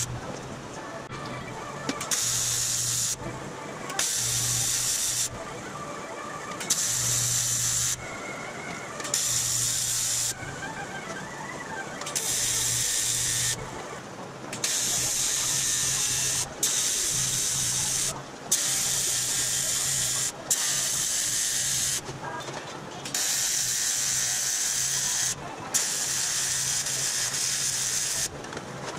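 AC TIG welding arc on aluminum body panels: a buzzing hiss with a steady low hum, struck and stopped about a dozen times in runs of a second or two as the seam is welded.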